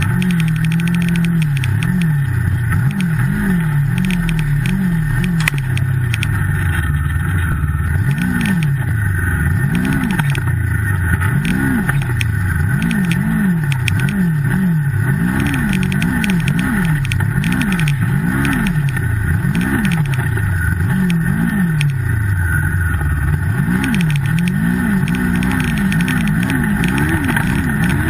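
Turbocharged Yamaha snowmobile engine being revved up and down over and over, its pitch rising and falling about once a second as the sled is throttled through deep powder snow.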